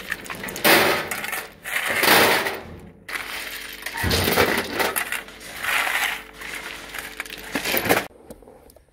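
Shovels and forks digging into a pile of crushed rubble stone and tipping it into a metal wheelbarrow, the stones crunching, clattering and clinking, with a loud scoop about every one and a half to two seconds. It stops suddenly near the end.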